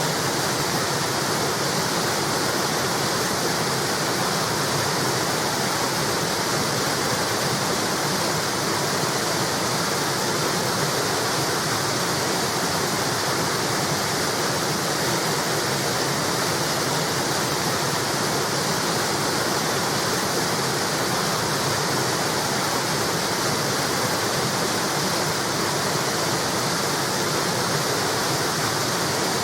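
River water pouring over a small weir wall: a steady, unbroken rush of falling water.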